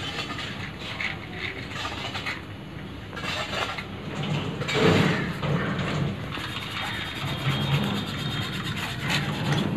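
A match struck on a matchbox about halfway through to light a gas brazing torch, a short scratchy flare over handling noise and a low background hum.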